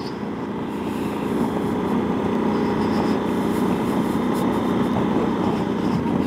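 Yamaha XT1200Z Super Tenere's parallel-twin engine running under way, mixed with wind rush, heard through a microphone inside the rider's helmet. It grows louder over the first second or so, then holds steady.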